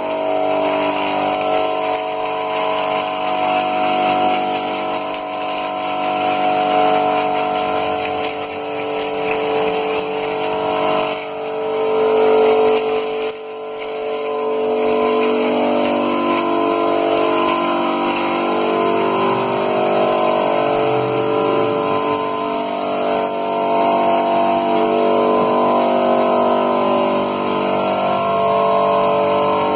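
Small 25-litre Goni air compressor running steadily under load as it feeds the foam tank, with a steady hiss of compressed air and foam spraying from the lance.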